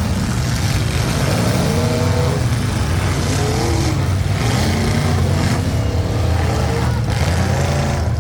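Demolition derby cars' engines running loudly together, with engines revving up and down again and again.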